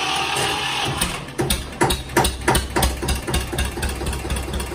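Eicher 242 tractor's diesel engine being started: the starter motor cranks with a whine for about a second, then the engine catches with a few uneven loud firing knocks and settles into a steady idle.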